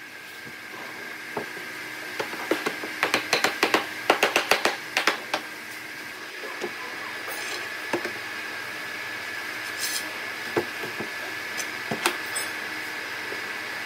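Workbench handling noise: a quick run of sharp knocks and clicks lasting about three seconds, then scattered single knocks, as a wooden slatted panel and steel pipe clamps are moved and set in place. A steady high hum runs underneath.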